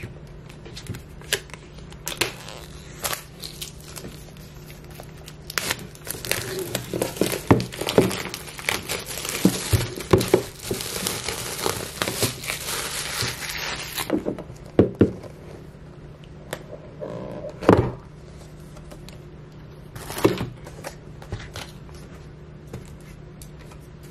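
Clear plastic wrapping being peeled and torn off an iPad box, crinkling and crackling, thickest from about six to fourteen seconds in. After that there are a few separate knocks and handling sounds.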